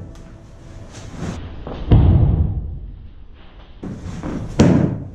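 Stiletto framing hammer bouncing off the wooden subfloor over a joist: two heavy thuds, about one and a half seconds apart after the first second, each with a short ring.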